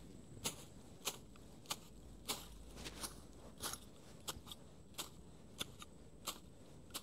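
A steady series of short, sharp snips or clicks, about one every two-thirds of a second, from hands working at grass or twigs on the ground.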